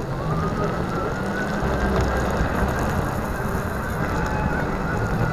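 Solowheel electric unicycle riding along wet pavement: steady tyre and wind noise on a low-mounted microphone, with a faint high whine held over it.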